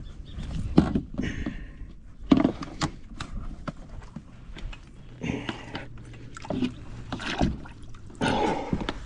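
Hands handling gear: scattered sharp knocks and clunks, with a few brief scraping, rustling noises in between.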